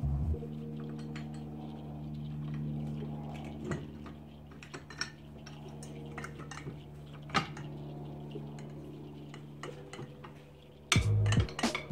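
Scattered metal clicks and clinks of a Hi-Lift jack's steel handle and climbing mechanism being worked by hand during reassembly, over a steady low drone of held tones.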